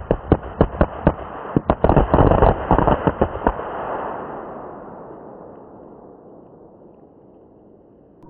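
A rapid, irregular volley of about twenty firecracker bangs over three and a half seconds. A noise follows and fades away over the next few seconds.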